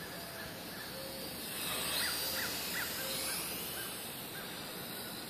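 WLtoys V959 quadcopter's motors and propellers whining, swelling louder and rising then falling in pitch as it passes close about two seconds in. Birds call in the background.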